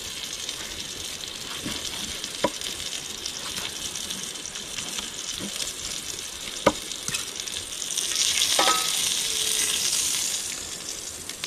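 Meat frying in hot oil in a pan, a steady sizzle that swells louder about eight seconds in and eases off again, with a couple of sharp clicks.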